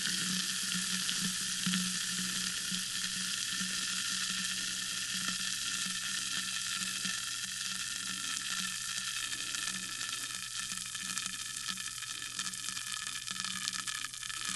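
Sparkling water fizzing steadily, a fine crackling hiss that slowly thins out, over a faint steady low hum.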